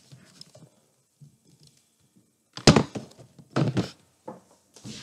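Handling thumps as a handheld camera is moved and set down on a wooden floor: a few dull knocks, the loudest about two and a half seconds in and another a second later, with smaller ones near the end.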